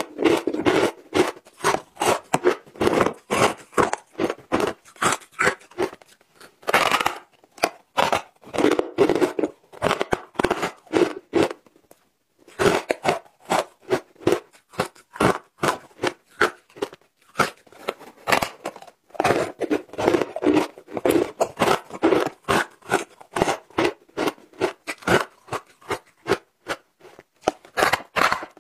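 Matcha-dusted ice being bitten and chewed: rapid crisp crunches, several a second, in runs broken by short pauses.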